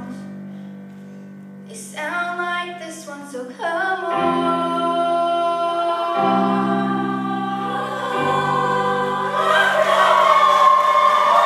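High school choir singing, several voice parts holding and moving between notes, growing louder toward the end.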